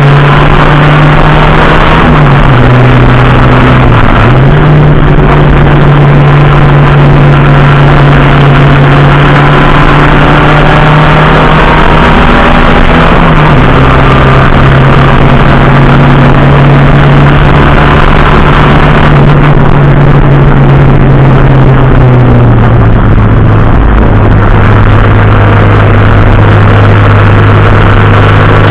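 A racing vehicle's engine heard onboard, loud throughout, holding a steady note that steps down in pitch a few times, about four seconds in, near the middle and again near the end.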